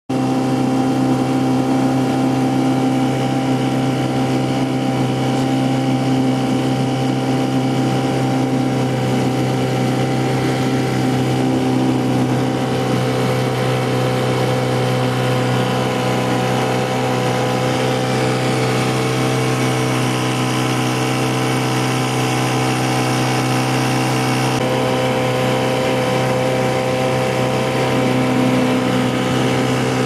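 Small outboard motor running steadily, pushing the boat along at a constant low speed, with a slight shift in its tone a few times.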